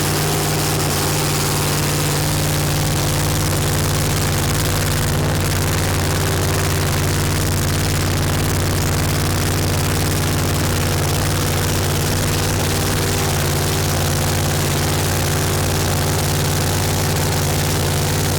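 Engine idling at a steady, unchanging pitch.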